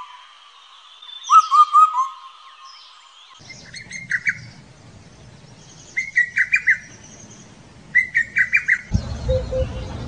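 An Indian cuckoo gives its four-note descending call once, about a second in. A lesser cuckoo follows with three quick staccato phrases of five or six notes each. Near the end, a Himalayan cuckoo gives low, paired hoops over a low rumble.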